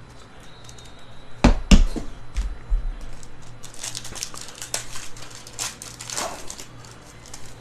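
A few sharp knocks, then a trading-card pack's wrapper being torn open and crinkled in rapid crackles for several seconds as the cards are pulled out.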